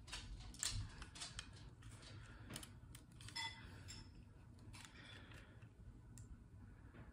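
Faint scattered clicks and taps of small plastic model locomotives being handled, turned in the fingers and held against each other.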